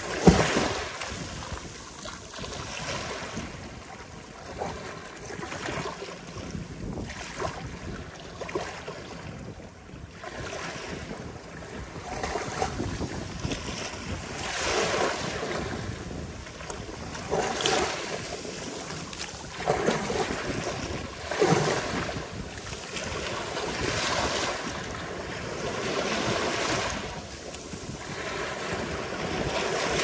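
Ocean surf breaking on a beach: a continuous wash of waves that swells and falls in repeated surges, the loudest just after the start and a run of them in the second half.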